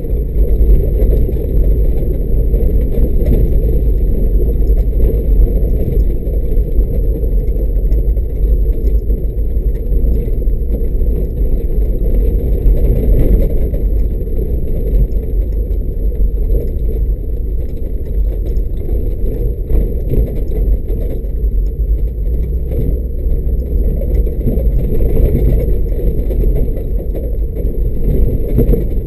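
Mercedes G500 driving slowly along a rutted dirt track: its V8 runs with a steady low rumble, with the tyres and body working over the rough ground.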